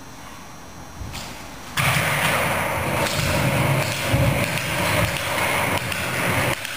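Skateboard wheels rolling over wooden floorboards with a border collie puppy standing on the board, starting about two seconds in as a loud, uneven rolling noise.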